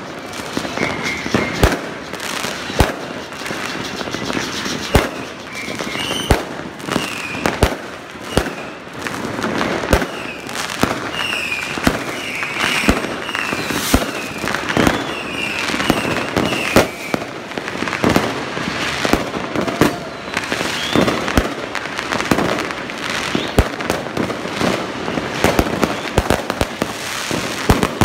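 Many fireworks going off at once: dense, irregular bangs and crackling from aerial shells and firecrackers. A run of short high chirps rises and falls in the middle.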